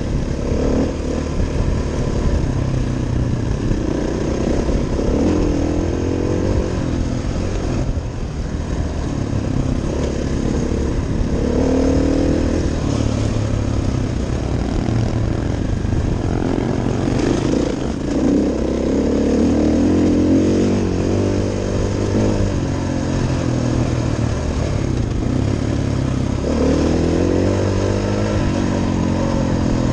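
Motorcycle engine of the bike being ridden, heard close up, running continuously on a gravel trail, its pitch rising and falling every few seconds as the throttle opens and closes.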